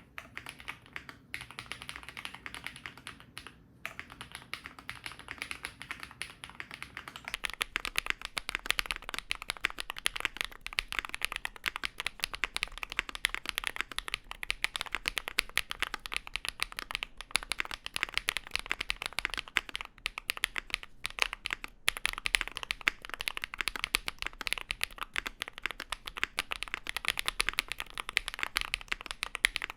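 Typing on an Enter67 mechanical keyboard with an aluminium plate and BSUN Bunny linear switches (PC top housing, PA bottom housing, LY stem, 42 g bottom-out, 3.6 mm travel). A steady stream of rapid key clacks, which gets faster and louder about seven seconds in.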